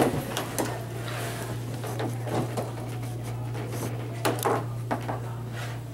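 Papers and small objects being handled on a tabletop: a scatter of rustles and light knocks over a steady low hum.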